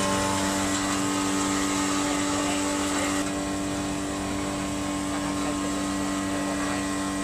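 Stainless-steel electric flour mill (pulveriser) running with a steady motor hum and whine while dried cooked rice is fed into it by hand to be ground into flour. The sound drops a little in level about three seconds in.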